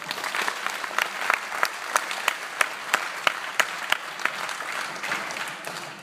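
Theatre audience applauding, with louder sharp claps standing out in a steady beat of about three a second.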